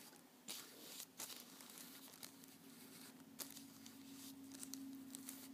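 Faint crinkling of a plastic bag as a small die-cast toy car is handled and turned on it, with a few light clicks. A faint steady hum comes in about two seconds in.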